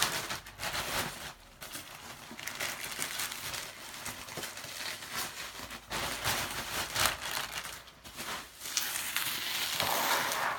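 Packaging being unwrapped by hand: an irregular crinkling and rustling that swells and fades, with a few sharper crackles.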